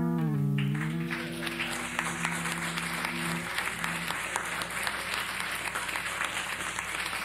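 Electric bass guitar's closing notes ringing out and dying away by about three and a half seconds in, while an audience breaks into applause about a second in and keeps clapping.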